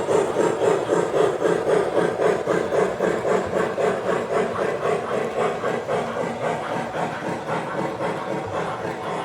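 O gauge model train running on the layout: motor hum and a rhythmic clatter of the wheels over the track, about five beats a second, slowly fading away.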